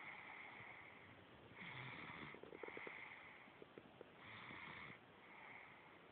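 A sleeping baby snoring softly: a steady run of short, breathy snores, in and out about once a second, with a brief rattly snore about two and a half seconds in.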